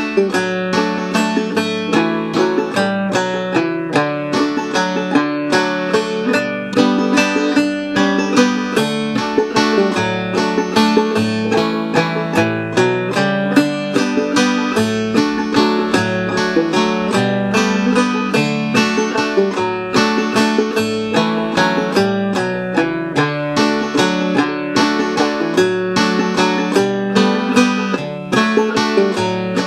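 Five-string banjo played clawhammer style in open D tuning (aDF#AD), picking a waltz in the key of D over a backing guitar part that holds the low notes.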